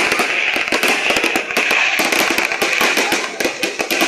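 Fireworks crackling: a dense, rapid run of sharp cracks and pops, many a second, over a continuous hiss.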